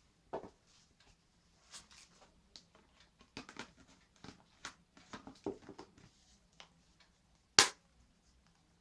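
An e-reader cover case being handled with the e-reader fitted inside: soft scuffs and light taps, then one sharp, loud snap about three-quarters of the way in as the cover is worked.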